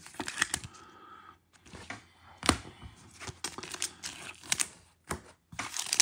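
A trading card being slid into a soft plastic sleeve and a rigid plastic top loader and handled: light plastic rustling and a scatter of sharp clicks and taps, the loudest about two and a half seconds in.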